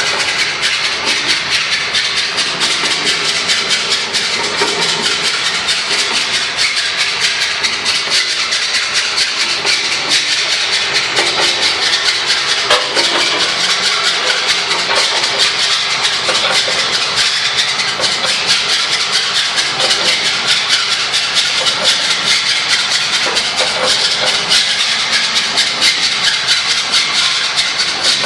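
Mains-water tank pipework vibrating: a loud, steady rushing hiss with a fast rattle running through it, the abnormal vibration noise of the pipes.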